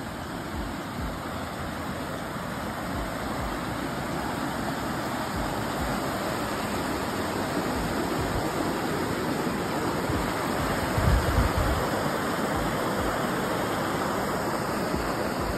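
Rushing mountain stream tumbling over rocks, a steady white rush that slowly grows louder. A few low thumps about eleven seconds in.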